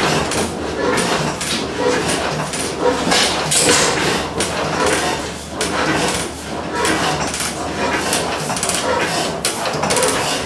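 Antique Olin stationary gas engine running: a sharp firing knock a bit more than once a second over the steady clatter of its valve gear and igniter.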